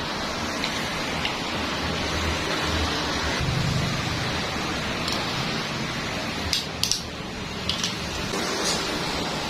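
MIG welding arc with a steady frying hiss, and a few sharper pops and crackles a little past the middle.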